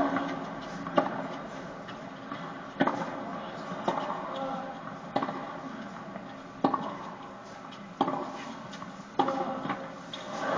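Tennis rally on a hard court: the ball is struck back and forth with rackets, about eight sharp knocks a second or so apart.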